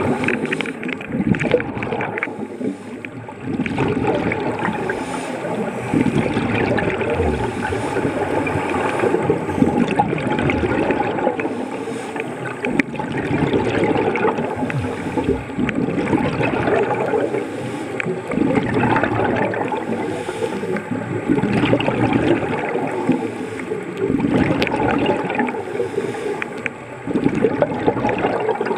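Underwater bubbling and gurgling water, a continuous rushing noise that swells and eases every few seconds.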